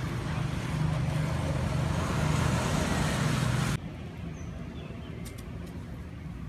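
A motor vehicle running on the road close by: steady noise with a low hum, growing a little louder, then cut off abruptly about four seconds in. After the cut, a quiet outdoor background with a few faint clicks and chirps.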